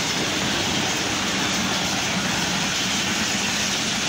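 Passenger train coaches passing close by at speed, making a steady rushing noise of wheels on rail and air.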